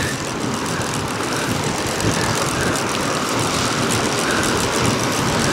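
Wind blowing hard across the microphone: a steady, loud rushing that slowly builds.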